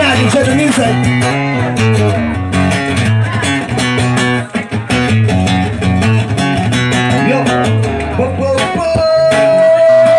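Acoustic guitar playing an instrumental passage with a steady bass line, amplified through a PA. Near the end a single long note is held.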